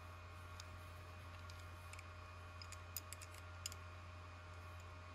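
A few faint, scattered light clicks and ticks of a valve and a small metal valve-seat-cutter setting jig being handled and fitted together in the fingers, over a steady low hum.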